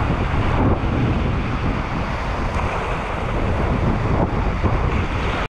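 Wind buffeting the microphone over the wash of sea waves on the shore, a dense, steady rush heaviest in the low end.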